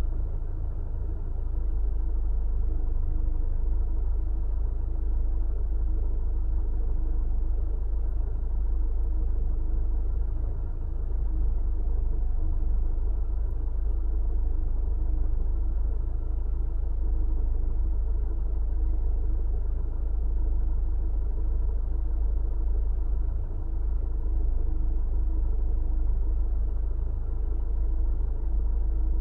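Car running, heard from inside the cabin: a steady deep rumble with a constant engine hum, no starting or stopping.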